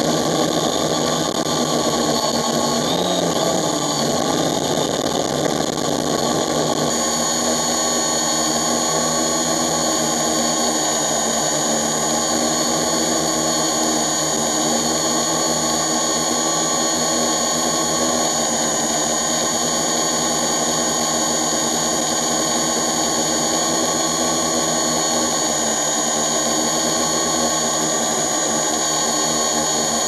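Multirotor drone's electric motors and propellers running in flight, a loud steady drone with several held tones, heard close up from the camera carried on the drone. The pitches shift a little around seven seconds in.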